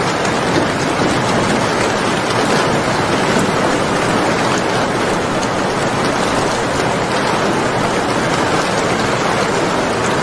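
Steady heavy rain, a dense even hiss with faint scattered drop ticks.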